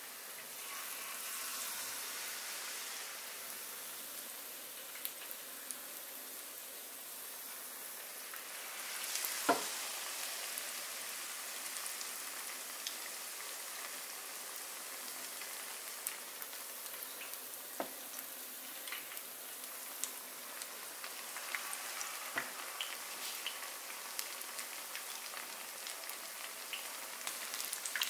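Tempura-battered pufferfish pieces deep-frying in hot oil in a skillet, with a steady sizzle. A sharp knock comes about a third of the way in and a smaller one about two-thirds through, and pops and crackles grow more frequent near the end.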